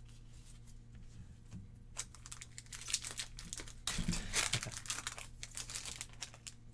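Foil Pokémon booster pack wrapper crinkling and tearing as the pack is opened: a dense crackle from about two seconds in until near the end, after a few soft rustles of cards being handled.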